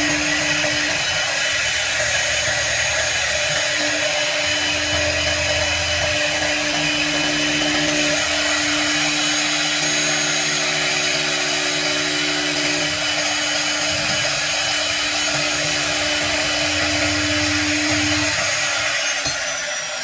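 CNC router spindle running and cutting acrylic sheet: a steady high whine over a dense hiss. Lower motor tones come and go every few seconds as the machine moves.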